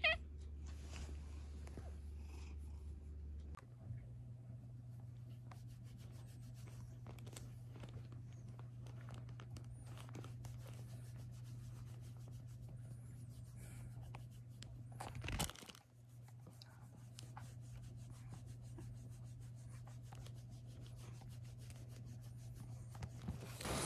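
Faint rubbing and scratching of a hand on a cat's fur as its head and neck are stroked, over a low steady hum. One louder bump comes about fifteen seconds in.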